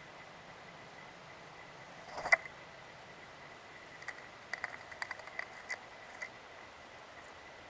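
A Steller's jay lands on a weathered wooden log with one sharp thump about two seconds in. It follows with a run of light taps and scratches on the wood as it hops about and picks up food.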